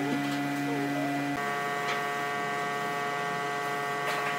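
A steady hum of several held tones, switching to a higher-pitched set about a second and a half in, with a few faint clicks.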